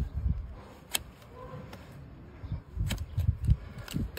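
Large flat hoof knife being pressed through a donkey's hoof horn onto a wooden trimming stand: sharp cracks as slices of horn are cut, with dull knocks of the hoof and blade on the wood, about half a dozen times.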